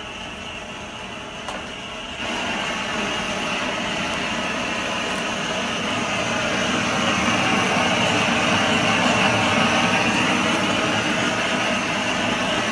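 Handheld gas blowtorch flame hissing steadily while it singes a plucked chicken, turned up louder about two seconds in.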